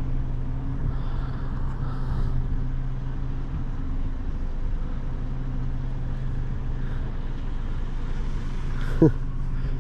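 Steady road and engine noise of a moving car, heard from inside the cabin, with a low hum. About nine seconds in, a brief squeak drops sharply in pitch.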